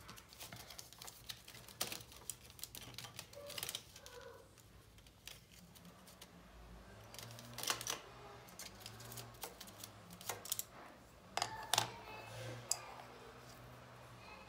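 Scattered light clicks and taps of colored pencils being handled and picked out, with a few louder knocks on the table.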